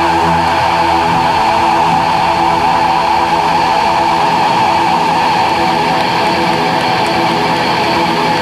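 Loud live rock band with distorted electric guitars making a dense wash of noise. A held low chord breaks off about a second in, leaving a thick, noisy roar of guitar.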